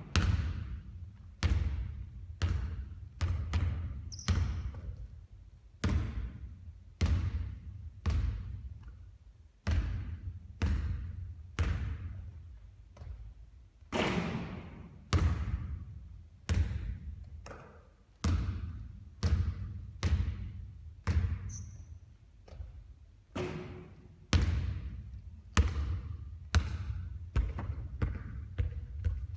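Basketball bouncing repeatedly: sharp thuds about once a second, some coming in quick pairs, each with a short echoing tail.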